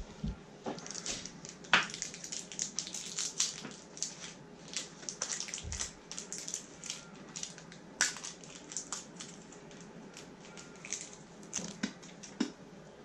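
Dense, irregular crackling and small clicks, with a few sharper clicks about two and eight seconds in.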